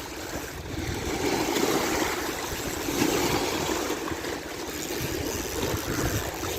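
Lake waves washing against the dam in a steady, noisy wash of water.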